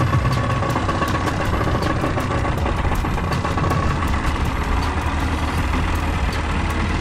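Small outboard motor running steadily, pushing a small boat along.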